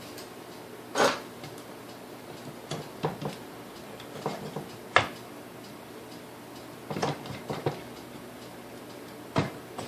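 Scattered light clicks and knocks of metal parts from a Sunbeam Mixmaster Model 9 motor being handled and set down during disassembly, the loudest about a second in and at about five seconds.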